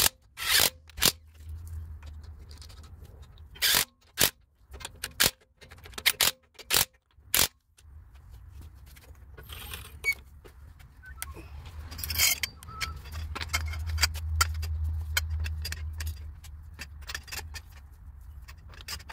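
Car wheel lug nuts being worked with a cordless impact wrench: a series of short, sharp bursts over the first seven seconds or so. After that come lighter metallic clicks and clinks over a low rumble.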